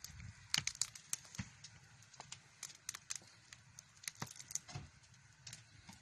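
Open wood fires crackling under large boiling cauldrons, with many irregular sharp pops and cracks over a low rumble.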